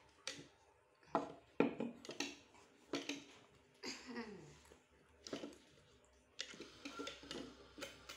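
Light knocks and clinks as a small metal cup, a drink can and a plastic glass are handled and set down on a tabletop, with a few short voice sounds between them.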